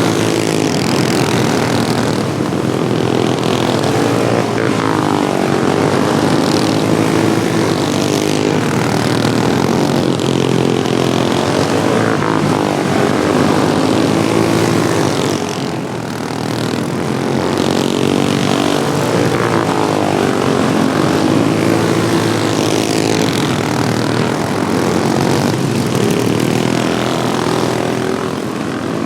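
Several modified Wheel Horse lawnmower engines running hard in a race. Their pitches rise and fall in overlapping waves as the mowers accelerate, lift and pass.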